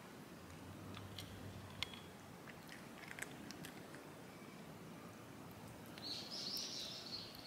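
Quiet garden ambience with scattered small clicks of cats eating from metal dishes, and a bird twittering briefly near the end.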